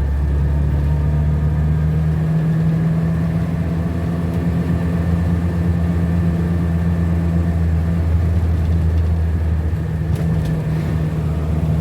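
Ford Corcel four-cylinder engine idling steadily, with a faint high whine over it. The owner takes this noise from under the car, which comes when the clutch pedal is pressed, for the clutch straining as if about to snap its cable.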